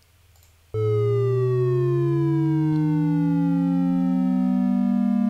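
Two triangle-wave oscillators from a p5.js sketch start together about three-quarters of a second in, panned one left and one right. One glides down from 440 Hz and the other glides up from 110 Hz, and they close on each other until they nearly meet at 220 Hz near the end. The falling tone drops fastest at first and slows as it approaches.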